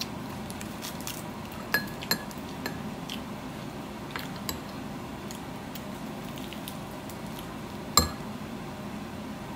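Metal spoon clinking and tapping against a plastic food container and bowl as food is scooped: a few light clicks, with the sharpest click about eight seconds in.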